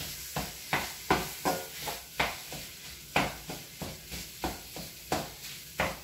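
A nylon Pampered Chef Mix 'N Chop tool stirring and breaking up ground Italian sausage and onion in a wok pan, with uneven scraping knocks against the pan about two or three times a second. The browning meat sizzles steadily underneath.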